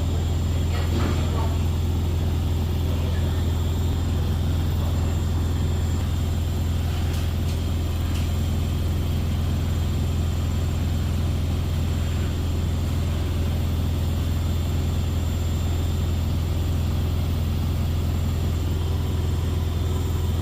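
Beko WS832425s washing machine spinning with an extremely unbalanced load, giving a loud, steady, low rumbling.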